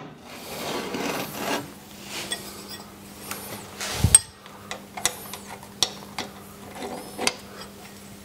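Metal parts and a hand tool handled on the table of a Thörns T2 tool grinder as it is refitted: scraping and rubbing, one louder knock about four seconds in, then scattered sharp clicks.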